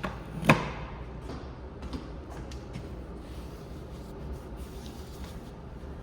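Treadmill running with a steady low hum, and one sharp knock about half a second in, followed by a few fainter clicks.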